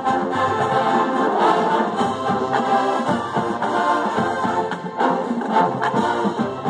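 A large marching band playing in full, brass-heavy, with sousaphones, trombones and trumpets sounding sustained chords.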